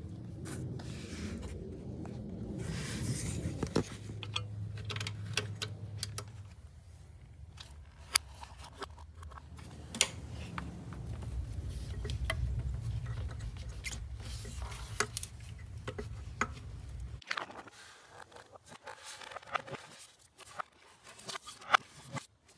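Scattered clicks, knocks and scrapes of hand tools and parts being handled, over a low steady hum that cuts off suddenly near the end.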